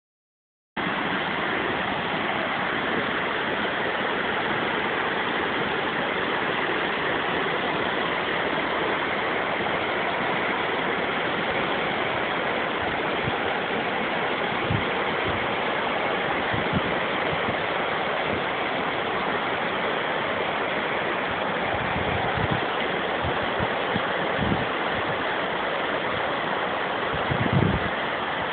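Steady rush of flowing water, with a few soft low thumps in the second half.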